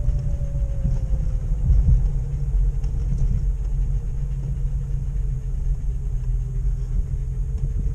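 Jeep Grand Cherokee ZJ in four-wheel drive, towing a trailer through soft sand, heard from inside the cab: a steady low rumble of engine and tyres, with a faint whine that slowly drops in pitch over the first few seconds.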